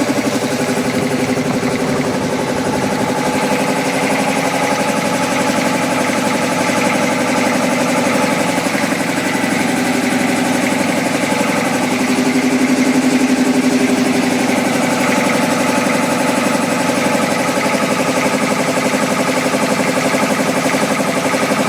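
A 3 HP piston air compressor running steadily, an even mechanical hum with a fast, regular pulse that holds the same pitch throughout.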